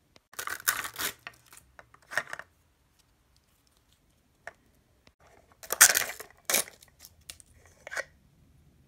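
Small hard plastic pieces clicking and clattering in several short bursts, loudest a little past the middle: a Mini Brands plastic capsule's hinged halves and miniature toy bottles being handled and knocked together.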